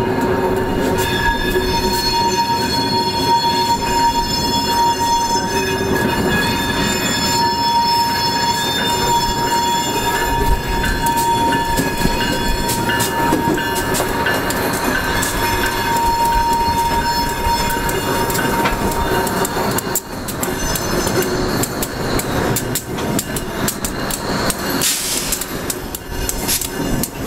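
Diesel switcher locomotive towing retired R32 subway cars, its engine running under steady high-pitched wheel squeal on the curved track. About 20 seconds in the squeal dies away and the wheels click over the rails as the subway cars roll past.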